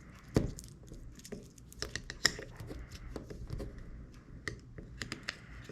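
Irregular small clicks and taps of hand tools working on an opened iPhone 6s while freeing its battery from the adhesive, with a sharper knock about half a second in and another about two seconds in.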